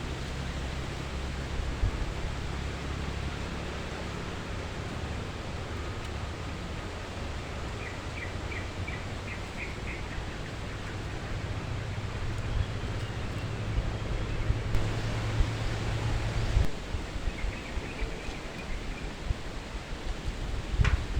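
Wind rumbling on the microphone with rustling, and two short runs of faint, quick bird chirps, one about eight seconds in and another near the end.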